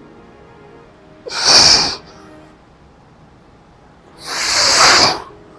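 Two loud, heavy breaths, about three seconds apart, from a man winded by a hard set of lat pulldowns. Faint background music runs underneath.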